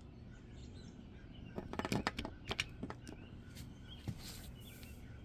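Plastic toys being handled: a quick run of clicks and knocks about a second and a half in, two more single clicks later, and a short rustle near the end.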